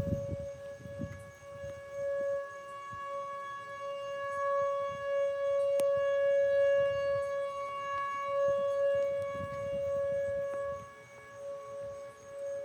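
Outdoor civil defense siren sounding for a tornado warning: one steady tone, its loudness slowly swelling and fading several times.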